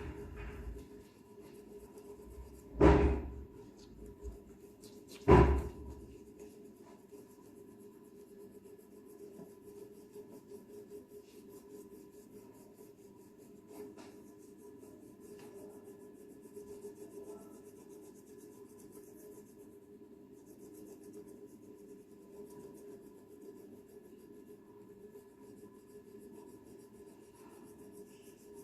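A crayon rubbing on paper as an area is shaded in. Two loud knocks come about three and five seconds in.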